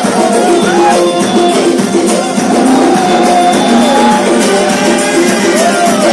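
Loud music: a sliding, ornamented melody line over held accompaniment notes.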